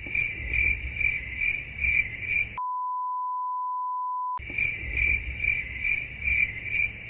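Crickets chirping at about two chirps a second, the comic sound effect for an awkward silence. Partway through the chirping cuts out for a steady pure beep of about two seconds, then resumes.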